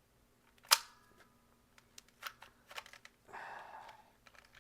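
Plastic toy pistol being handled: one sharp click about three-quarters of a second in, then several lighter clicks and a brief rustle.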